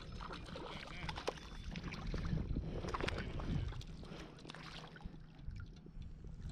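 A hooked trout splashing at the surface of a shallow stream as it is reeled in, with water sloshing and scattered sharp clicks and knocks, busiest in the first few seconds.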